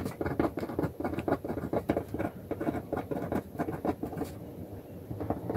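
Ballpoint pen writing on paper: a quick run of short scratchy strokes and taps, thinning out briefly about four seconds in.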